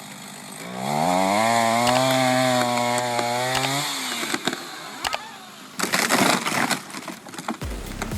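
Chainsaw revving up and running at high speed for about three seconds, then dropping back. A flurry of sharp cracks and knocks follows about six seconds in.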